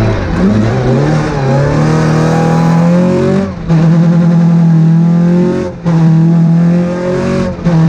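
Two-wheel-drive rally car's engine heard from inside the cabin, pulling hard at full throttle. It climbs in pitch, with three quick upshifts, each a brief drop in sound before it pulls again.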